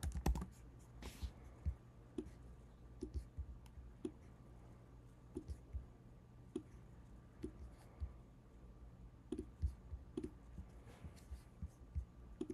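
Faint, scattered clicks from a computer mouse and keyboard, irregular and about one every half second to second, over quiet room tone.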